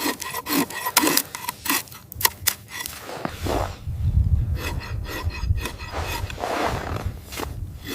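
Hand work on wood: a quick run of sharp knocks and rasping scrapes, joined by a low rumble from about three seconds in.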